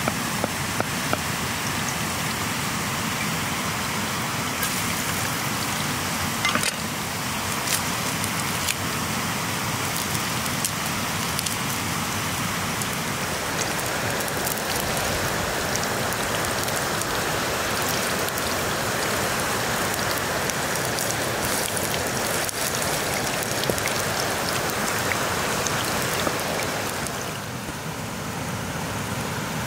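Garlic slices sizzling in oil in a black pan over an open wood fire, with the fire crackling: a steady dense hiss scattered with pops that eases off near the end. A few sharp knife chops on a wooden board come in the first second.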